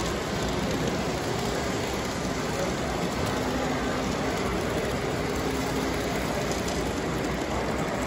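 Steady background noise of a crowded room, with faint distant voices.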